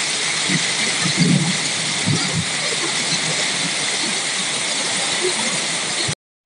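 Hail and heavy rain pelting down on paving, a dense steady hiss with scattered small knocks. It cuts off suddenly near the end.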